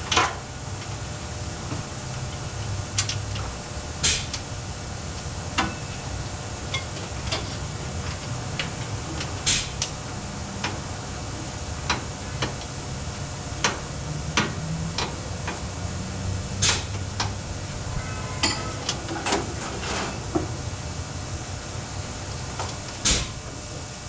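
Scattered sharp metal clinks and knocks of tools and parts during an oil change in a service pit, about a dozen strikes spread irregularly over a steady low hum.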